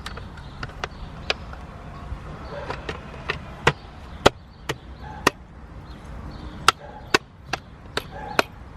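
A steering wheel's back cover being pressed and knocked into place on the wheel: a string of irregular sharp clicks and taps, some louder than others.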